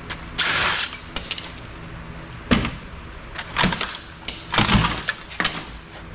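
A cordless power driver runs in one short burst about half a second in, working on screws in a scrap copier's frame, followed by several sharp metallic knocks and clicks as parts and the tool are handled.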